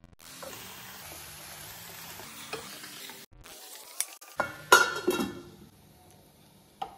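Onion-tomato masala sizzling in a kadai as raw quail pieces are stirred into it with a metal spoon, giving a steady frying hiss. About two-thirds of the way through come several loud scrapes and clatters of the spoon against the pan. After that it goes quieter, with a single click near the end.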